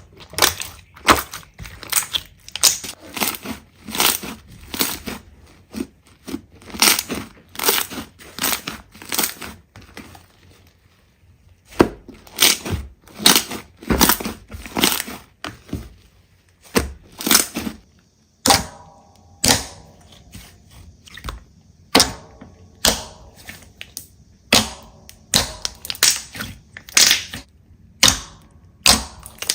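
Slime being squeezed and worked by hand, giving a long series of short, sharp crackling squishes about one or two a second, with a brief lull a little over a third of the way through.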